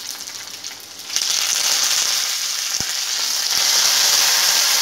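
Curry leaves and dried red chillies frying in hot sesame oil in a kadai. About a second in, the oil breaks into a loud, steady high sizzle as the leaves hit it, and a metal ladle stirs through them.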